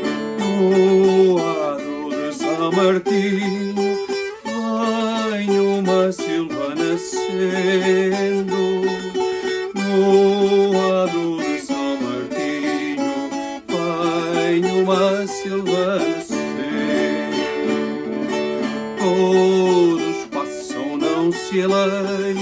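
Viola campaniça, the Portuguese Alentejo folk guitar, plucked in a melody of short phrases that repeat every few seconds.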